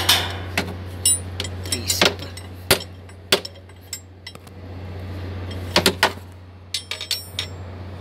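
Irregular metallic clicks and knocks of tools and hands working around the serpentine belt pulleys of a CAT 966H wheel loader's engine, over a steady low hum.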